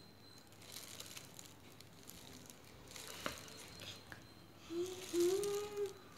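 Faint rustling and handling of a canvas board, with a sharp tap about three seconds in. A child's voice sounds briefly near the end.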